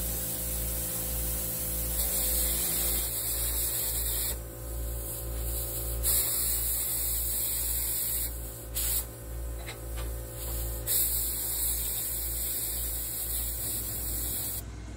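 Handheld plasma cutter cutting a door opening into a steel smoker chamber: a loud hissing rush of air and arc that breaks off and starts again a few times, over a low pulsing hum.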